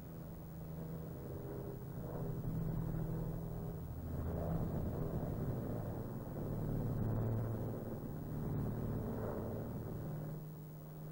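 Steady drone of a Douglas Dakota's two radial piston engines heard inside the cabin in flight, swelling and easing a little in loudness.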